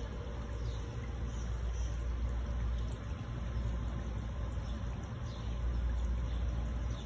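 Wind rumbling on the microphone, a low uneven noise that swells and eases, loudest about two seconds in and again near six seconds.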